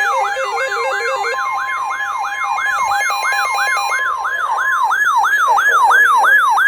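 Emergency alert tones: a siren-like tone sweeping up and down about three times a second, with a steady alert tone held under it that stops about five seconds in, ahead of a weather radio marine warning.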